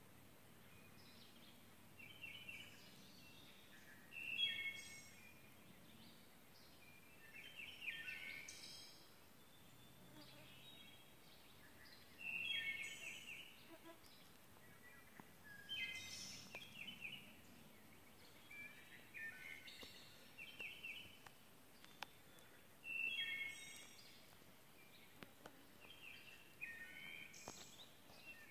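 Songbirds singing: short chirping song phrases repeating every three or four seconds, faint over quiet woodland background. A few soft clicks come in the later part.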